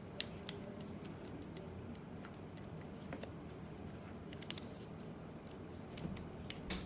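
Scattered light clicks and taps of toy doctor-set pieces being handled, with a sharp click just after the start and a quick cluster of clicks near the end, the last one the loudest.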